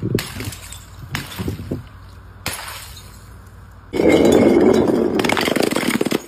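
Glass bottles smashing: three sharp crashes about a second apart, each trailing off in tinkling shards, then a louder, longer crash and clatter for the last two seconds that cuts off suddenly.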